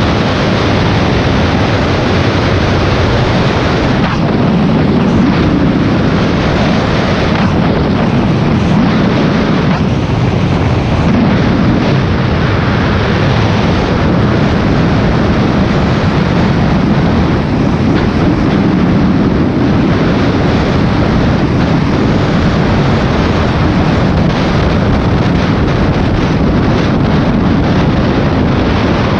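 Honda VTX V-twin cruiser motorcycle running at a steady road speed, heavily masked by loud, steady wind buffeting on the camera's microphone.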